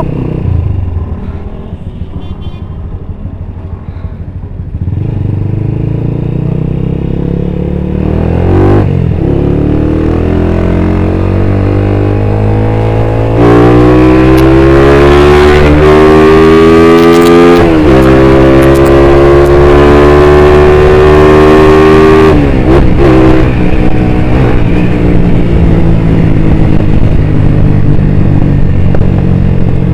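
Sport motorcycle's engine accelerating under the rider: its pitch climbs for several seconds, drops sharply at a gear change, then settles into steady cruising. A louder rushing noise joins in the middle stretch while the engine works hardest.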